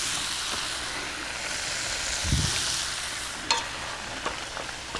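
Diced tomatoes sizzling in a hot frying pan on a portable gas burner, the hiss easing off after about three seconds. A soft low thump comes about two seconds in, and there are a couple of light clicks near the end as a wooden spoon works in a cooking pot.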